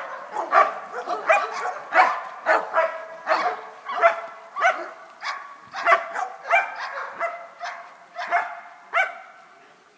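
German Shepherd dog barking steadily and repeatedly, about one and a half barks a second: guard barking at the decoy during protection work.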